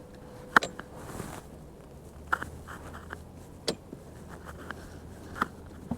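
Four sharp knocks inside a fishing boat, about one every second and a half, over a low steady hum.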